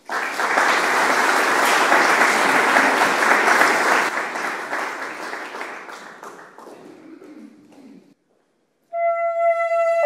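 Audience applauding, dying away over several seconds. After a brief silence a tárogató comes in with one long held note near the end.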